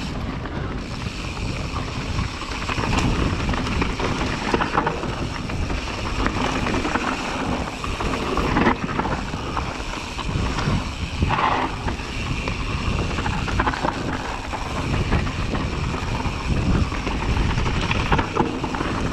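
Yeti SB150 enduro mountain bike descending a dirt trail at speed, with wind rushing over a chest-mounted camera's microphone. The tyres roll over dirt and leaves while the bike knocks and rattles over bumps.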